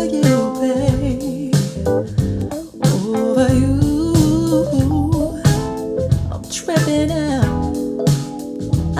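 Soul-blues song with a guitar melody over bass and drums, played back through hi-fi bookshelf loudspeakers and picked up by a microphone in the room.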